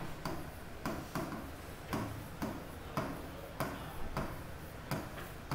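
Stylus tapping on the glass of an interactive touchscreen display during handwriting: sharp clicks at an uneven pace, about two a second.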